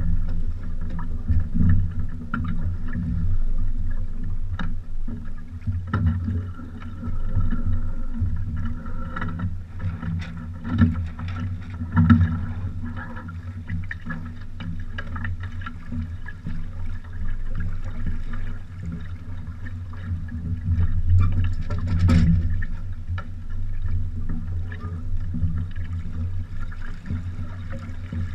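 Water sloshing and slapping against the hulls of a small sailing trimaran under way, a constant low rumble with a fainter hiss above it. Scattered knocks and clunks from the boat break through it, the loudest about 22 seconds in.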